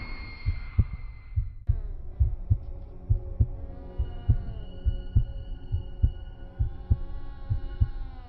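Heartbeat sound effect in a horror-film soundtrack: steady paired low thumps, about one beat a second, under an eerie drone of held tones that slowly bend in pitch. A higher tone joins about four seconds in.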